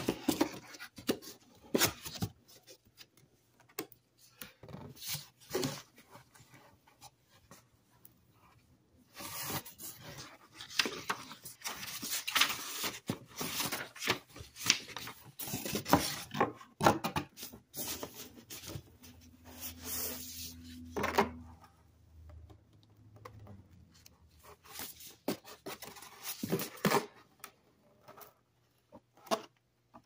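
Cardboard box being opened and unpacked by gloved hands: a flap tab pulled free, then irregular scraping and rustling of cardboard, foam wrap and a paper manual, with short quiet gaps.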